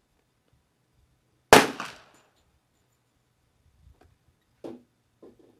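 A single .22 LR rifle shot from a Christensen Arms rifle firing Aquila 40-grain ammunition: one sharp crack about a second and a half in that dies away within half a second. Three faint short knocks follow near the end.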